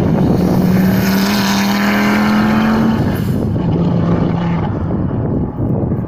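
Audi Quattro S1 E2 Group B rally car's turbocharged five-cylinder engine at full throttle as it passes, a loud engine note rising slightly in pitch for about three seconds. A shorter, lower stretch of engine note follows around the four-second mark.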